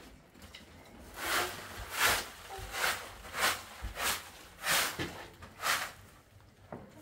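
A rhythmic run of short hissing, scraping strokes, about three every two seconds, with a lull near the end.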